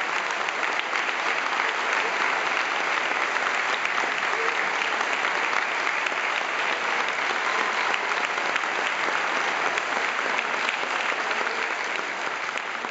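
Large audience applauding: dense, steady clapping that begins to fade near the end.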